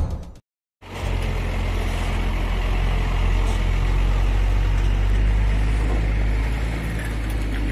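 Heavy diesel truck engine running steadily, a deep low drone that sets in about a second in after a short silence.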